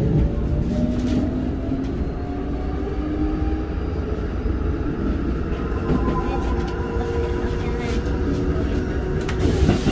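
Keikyu 1500 series field-chopper-controlled electric train accelerating out of a station, heard from inside the car. The whine of the traction motors rises slowly in pitch over the first few seconds and settles into steadier tones later, over a constant low rumble of wheels on rail. A few clicks from rail joints come near the end.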